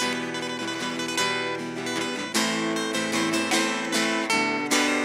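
Acoustic guitar strumming and picking chords as a song's introduction, with repeated chord attacks that ring on between strokes.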